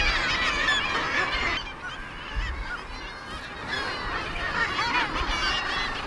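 Seabird colony calling: many birds' short calls overlapping in a dense chorus. It thins abruptly a little under two seconds in and builds again near the end.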